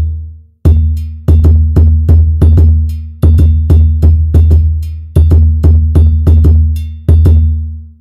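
Sampled dununba, the large West African bass dunun drum, from Native Instruments' West Africa Kontakt library. It plays deep, ringing strokes several times a second in short rhythmic phrases, with brief pauses between phrases.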